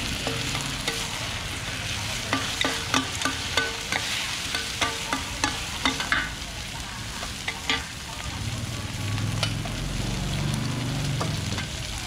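Mussels, batter and egg sizzling in oil on a large flat steel pan while two metal spatulas chop and scrape against it. A quick run of sharp metallic taps comes between about two and six seconds in.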